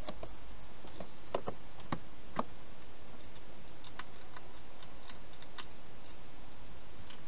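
Wild hedgehog feeding at bowls inside a plastic feeding box: irregular small clicks and crunches, more of them in the first half, over a steady hiss.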